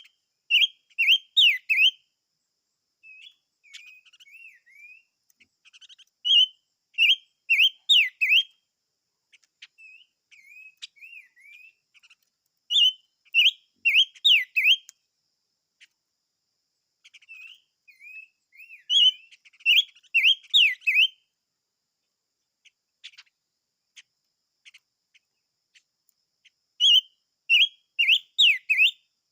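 A chim ngũ sắc (five-coloured bird) singing: loud phrases of quick whistled notes, each about two seconds long and repeated roughly every six seconds, with softer twittering in between.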